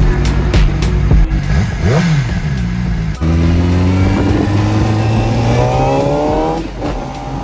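CFmoto Voom 500SR's 499 cc inline-four engine: a quick rev up and back down. After an abrupt cut about three seconds in, the engine pulls under acceleration with its pitch climbing steadily, then eases off near the end.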